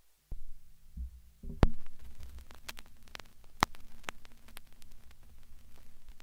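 Low electrical hum under scattered crackles and sharp pops, an old-footage noise effect. The sound drops out briefly at the start, then the hum comes back, with the loudest pop about a second and a half in and another near the middle.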